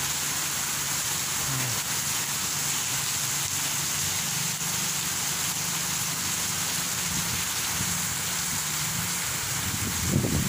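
Steady hiss of rain falling, with a bulldozer's diesel engine running low and even underneath.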